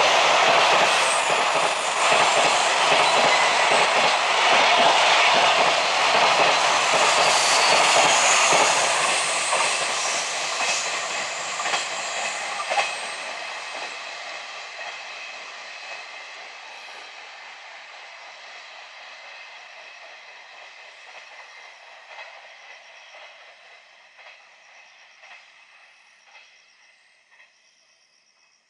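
Freight train of container wagons running past on the rails, the wheels clattering with scattered sharp clicks. The sound is loud for the first ten seconds or so, then fades steadily as the train draws away, nearly gone by the end.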